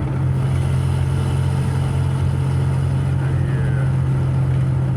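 Car engine and exhaust running with a steady low drone while the car is driven.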